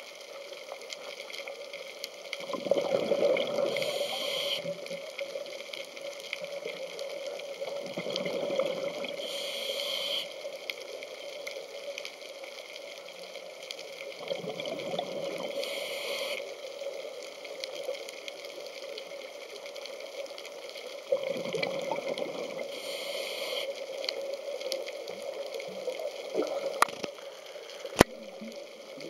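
Underwater recording of a scuba diver breathing through a regulator: four breaths about six seconds apart, each a rush of bubbles with a short hiss, over a steady hum. A sharp click near the end.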